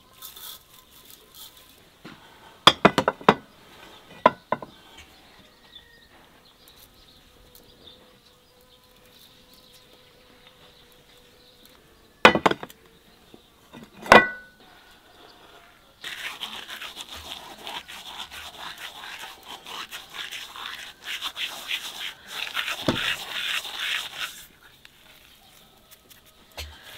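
Hand food-preparation sounds as spices are sprinkled over and worked into chopped raw meat: a few sharp knocks and clicks, then a long stretch of dense, crackly rustling in the second half.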